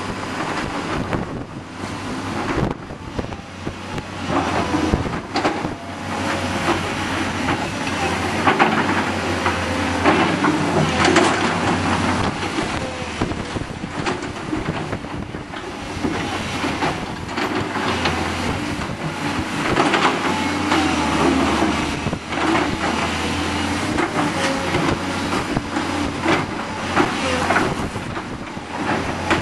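Blustery wind buffeting the microphone, heard as a dense, irregular crackling, over the steady low drone of tracked hydraulic excavators working.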